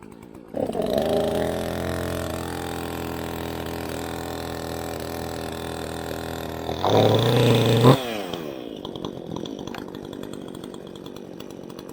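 Two-stroke chainsaw starting on the pull about half a second in and running steadily, then revved briefly and loudly around seven seconds before dropping back in pitch to a quieter idle about eight seconds in. It fired right up on the second pull, the first having been on the choke.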